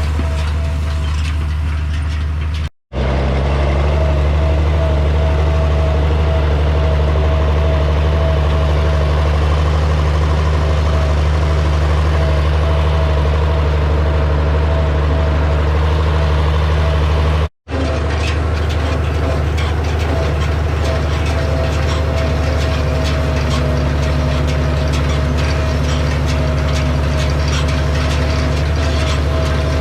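Farm tractor engine running steadily at a constant speed, with a wavering whine above it. In the second half a fine rapid ticking joins in. The sound cuts out briefly twice.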